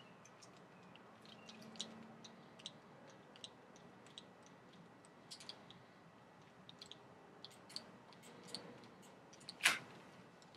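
Faint clicks, ticks and rustles of hands working stretchy fabric over a bike saddle with small metal tools, with one sharper click near the end.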